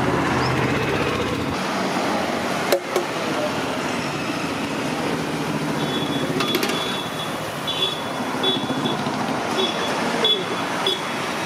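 Street ambience at a roadside stall: steady traffic noise with background voices. A single sharp clack comes about a quarter of the way in, and a high tone repeats in short dashes through the second half.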